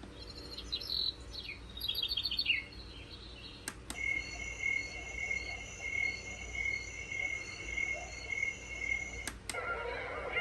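Sound machine playing its built-in nature sounds one after another: bird-like chirps, then after a pair of clicks a steady electronic tone with an even pulsing chirp like crickets, then another pair of clicks as a new sound starts near the end.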